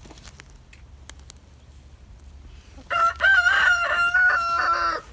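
A rooster crowing once, a loud call of about two seconds starting about three seconds in and dropping to a lower note at the very end.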